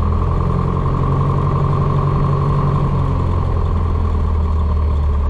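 Light single-engine piston airplane's engine and propeller running with a steady drone, heard from inside the cockpit.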